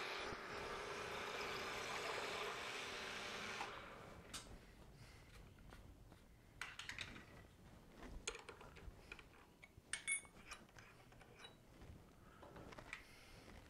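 Large twist drill in a Precision Matthews PM-727M mill-drill cutting through a metal block, a steady hiss that stops about four seconds in. Then come scattered light clicks and clinks as metal chips are brushed off the block and vise.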